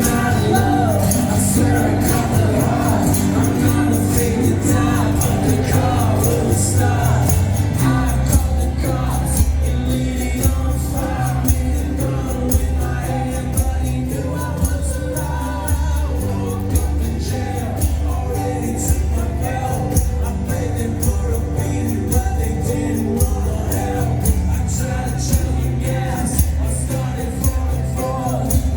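A rock band playing a song live in an acoustic set, with sustained low notes and a steady beat.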